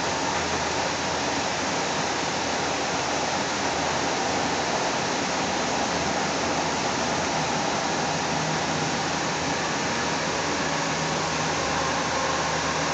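Steady rushing running noise heard inside a moving Kinkisharyo light rail car of Seattle's Link line: wheels on rail and car noise at speed, with a faint steady whine.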